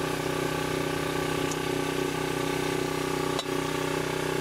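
Portable generator engine running steadily at constant speed, a continuous hum with several held tones. A short click a little over three seconds in.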